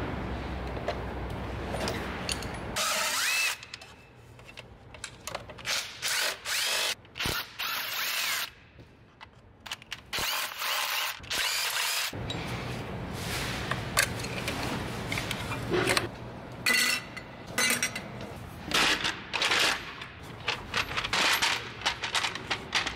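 Hand tools at work on a BMW 528i engine: metal sockets clattering in a tool chest drawer, then repeated short bursts of a ratchet turning out the plastic valve cover's bolts, with clicks and knocks in between.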